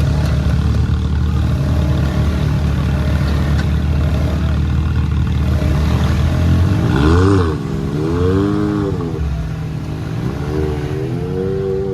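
Off-road vehicle engine running steadily, then revved up and back down twice in the second half.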